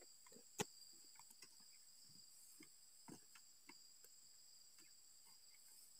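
Faint, steady high-pitched insect chorus, with a few soft scattered ticks and one sharp click about half a second in.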